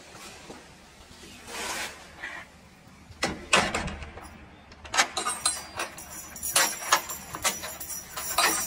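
A couple of soft rustling swells and a loud thump, then background music with jingling, tambourine-like percussion starting about five seconds in.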